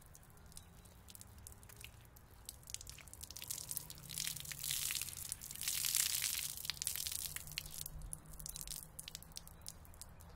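A soaked microfiber towel being wrung out by hand, water splashing onto wet asphalt: a rush of water around the middle, with scattered drips before and after.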